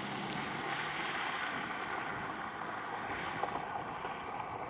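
A car's engine hum fading within the first second as it drives off along a rural road, under a steady rushing hiss of the storm.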